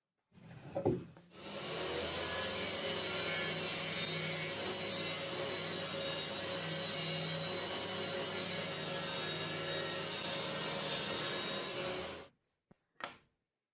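Saw cutting through wood: a steady, continuous cutting noise for about ten seconds that stops abruptly, with a short sound just before it starts and a click near the end.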